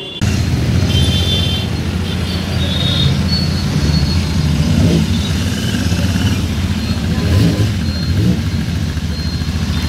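Royal Enfield 650 parallel-twin engine running with a steady, low, pulsing exhaust note, swelling slightly a few times as if lightly blipped. It starts abruptly at the very beginning.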